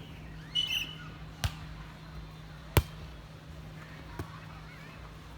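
A volleyball struck in a rally: three sharp smacks about 1.3 s apart, the middle one the loudest. A brief high, squawk-like cry comes just before the first.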